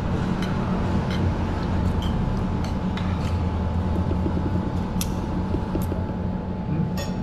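Spoon and fork clinking lightly against a plate several times while eating, over a steady low background hum.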